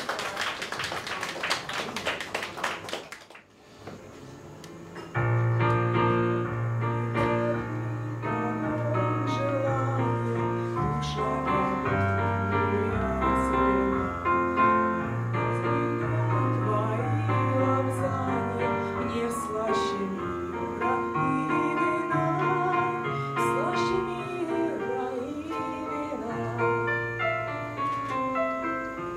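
About three seconds of applause, then after a short pause a piano starts and accompanies a woman singing a Russian romance into a microphone.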